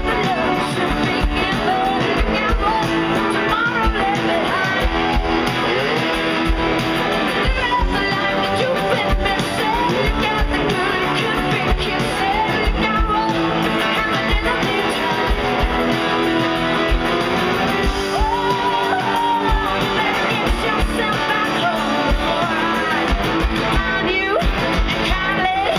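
Live rock band playing: a woman sings lead over strummed guitar and a steady drum beat.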